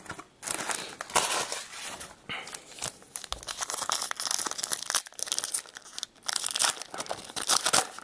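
Plastic wrapper of a pack of baseball cards crinkling in the hands in a rapid, irregular run of crackles, with tearing as the pack is ripped open.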